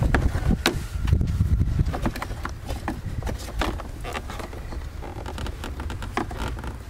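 Irregular plastic clicks and taps from hands and a screwdriver working at clips on the back of a Land Rover LR3's removed plastic front bumper cover, over a low rumble.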